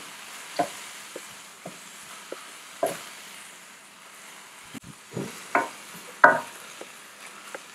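Soaked basmati rice and diced vegetables being stirred and toasted in a stainless-steel sauté pan with a wooden spatula: a soft, steady sizzle under irregular scrapes and knocks of the spatula on the pan, the loudest a little past the middle.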